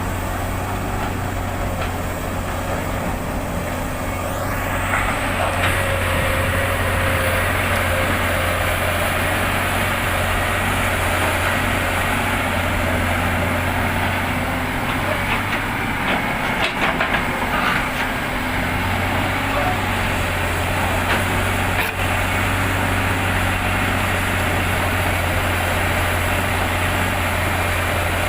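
Heavy diesel engines of an excavator and dump trucks running steadily, with a brief rising whine about four seconds in and a cluster of knocks and clatter about halfway through.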